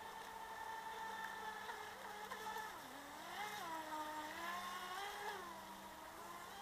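Radio-controlled model speedboat's motor whining at speed, its pitch dipping about three seconds in, rising again and falling near the end.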